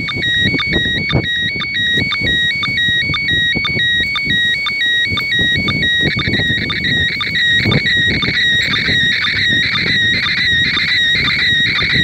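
Slow-scan TV picture signal from the International Space Station, coming out of a handheld FM radio's speaker: a loud tone that steps briefly up in pitch about three times a second, the line rhythm of an SSTV image being sent and decoded.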